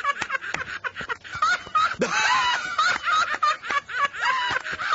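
Two men laughing together, a quick, continuous string of repeated ha-ha-ha's.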